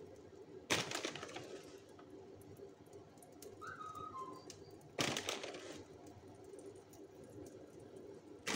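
Three sudden rustling, scraping bursts, about a second in, at five seconds and at the very end, each fading within a second: a spoon and a packet of grated cheese handled as the cheese is scattered over an omelette in a nonstick pan. A faint steady hum runs underneath.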